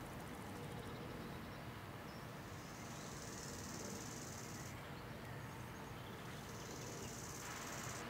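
Night insects trilling in a steady high-pitched drone, in two long stretches, over a quiet room hum. Near the end, the steady whirr of an electric desk fan comes in.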